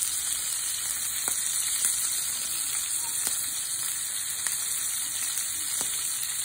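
Strip steak frying in oil with chopped onions and green and red peppers in a pan: a steady high sizzle with a few sharp pops scattered through it.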